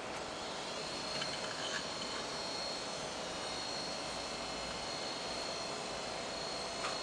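IBM Travelstar 20GB laptop hard drive in a PowerBook G4 running with an abnormal high-pitched 'jee' whine, a steady tone that sets in about a second in over a steady hiss, with a few faint clicks early on and near the end. The noise is the sign of a fault in the drive.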